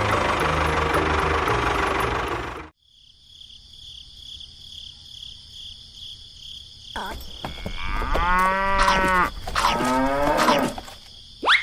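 A loud, dense noisy sound cuts off abruptly about two and a half seconds in. A steady, pulsing high insect-like drone follows, and over it come two long animal calls that bend in pitch, like mooing. A quick rising sweep comes just before the end.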